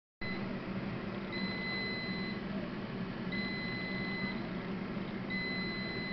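Nutricook air fryer oven's end-of-cooking alarm: a high beep about a second long, repeating every two seconds, signalling that the cooking cycle has finished. Under it the oven's fan runs steadily.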